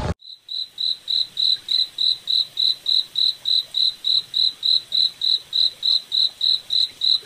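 A cricket chirping in a steady, even rhythm, about three to four high-pitched chirps a second.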